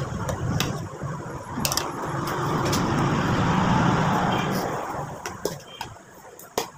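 Metal spoon and fork clinking against a plate several times over a low rumble that swells to a peak about four seconds in and then fades.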